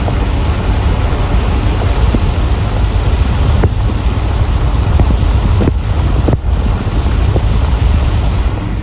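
Car driving on a rain-soaked road in heavy rain: steady, loud road and wind noise with tyres hissing on the wet pavement, and a few light ticks.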